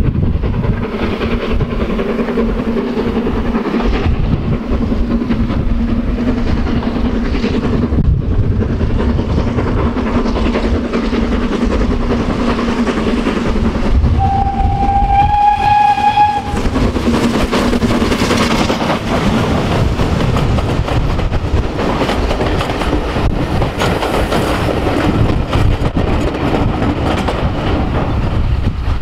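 BR Standard Class 9F 2-10-0 steam locomotive No. 92212 working a train towards and past the listener. About halfway through it sounds one steam whistle blast of about two seconds on a single note, then the locomotive and its coaches pass close by, louder in the second half.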